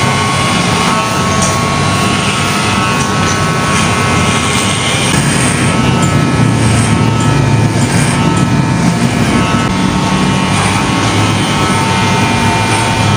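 Corded electric hair clipper buzzing steadily as it cuts hair close up.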